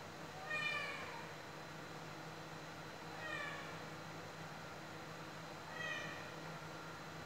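Cat meowing three times, short calls that fall in pitch, the first the loudest, as it begs for the food being put into its bowl.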